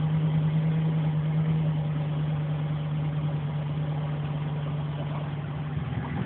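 2009 Chevy Silverado 1500's 4.8-litre V8 idling steadily shortly after a cold start in freezing weather, heard from inside the cab. It is a constant low hum.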